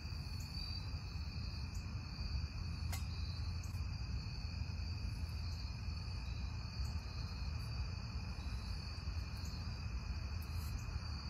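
Night chorus of crickets and other insects: a steady, high-pitched drone at several pitches at once, with one sharp click about three seconds in.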